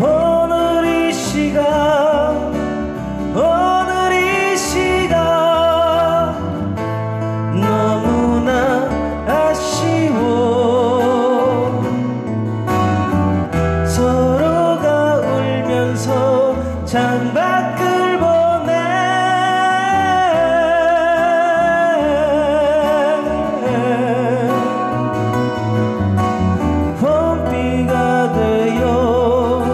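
A man singing a slow Korean pop song with a marked vibrato on held notes, accompanied by two strummed acoustic guitars.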